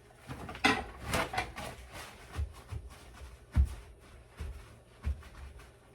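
Paper towels crinkling, then a chuck roast being patted dry with them in soft, irregular thumps, about one a second.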